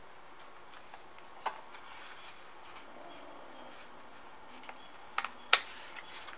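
A few short clicks and crinkles from a foil booster pack of trading cards being handled and opened, the sharpest near the end, over quiet room hiss.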